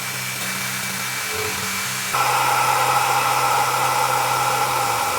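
A CNC milling machine takes a facing pass across a 6061 aluminium bar with a face mill. The spindle gives a steady whir, and about two seconds in a louder, steady cutting sound sets in as the cutter bites into the stock.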